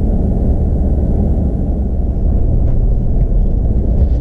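Steady low rumble of a vehicle driving, heard from inside the cabin: engine and road noise, with a couple of faint ticks.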